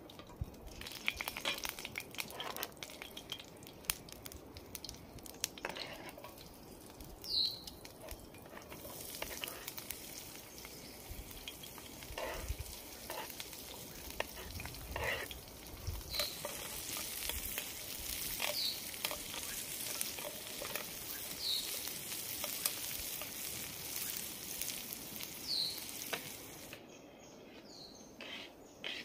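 Chopped onion frying in hot oil in a grill pan over a campfire: a steady sizzle from about a third of the way in that cuts off near the end. Before it come sharp taps of a knife on a wooden chopping board, and a few short bird chirps sound over the sizzle.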